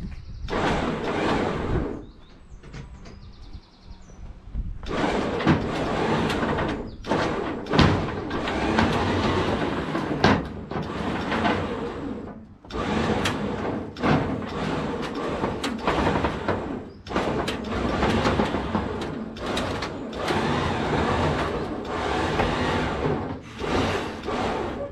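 Hillman Imp being hauled up steel loading ramps in a series of stop-start pulls: rough scraping and rumbling surges, each one to four seconds long, with short pauses between.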